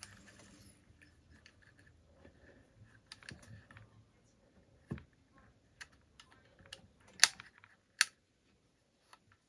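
Scattered light clicks and taps of small parts being handled during chainsaw reassembly, as the ignition wire and its part are worked into place; two sharper clicks come near the end.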